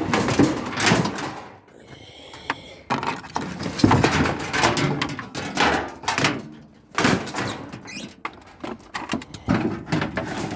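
Irregular knocking and clattering of scrap tumble dryer parts being handled and set down.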